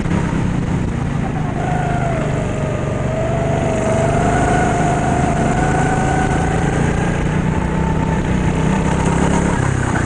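Indoor go-kart engine running hard under the driver; its whine climbs slowly as the kart accelerates, then dips briefly near the end as the driver lifts off.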